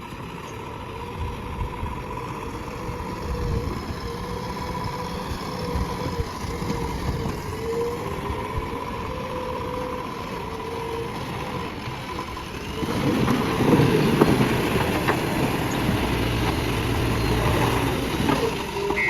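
Diesel engine of a JCB backhoe loader running steadily, growing louder and rougher about two-thirds of the way through.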